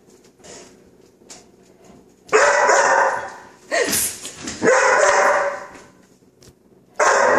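A chocolate Labrador puppy barking in loud bursts, mixed with the hiss of a non-stick cooking spray can that frightens it. The bursts come about two seconds in, twice more around four and five seconds, and again near the end.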